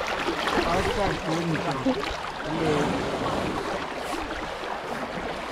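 River water splashing and streaming around a bathing elephant, close to the microphone.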